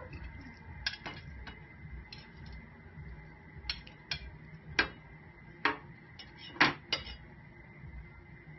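A metal cooking utensil clinking against a pan in short, scattered knocks, about nine in all, the loudest about two-thirds of the way through.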